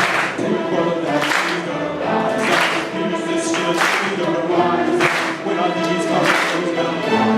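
A school orchestra playing with voices singing along, under a regular beat that lands about every second and a quarter.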